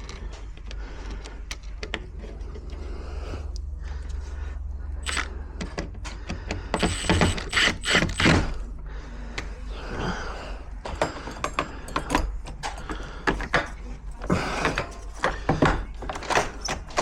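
Clicks, knocks and clinks of lock hardware and tools being handled during a lock repair, over a steady low rumble. The clicks come in bursts from about five seconds in, and are densest and loudest around seven to eight seconds.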